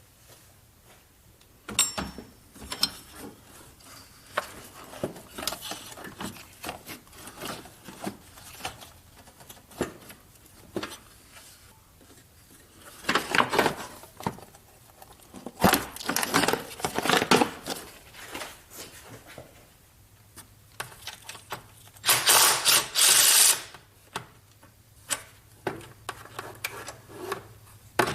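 Hand tools at work on an engine: scattered metal clicks and clinks, with three longer runs of ratchet-wrench clicking, about halfway through and again near the end.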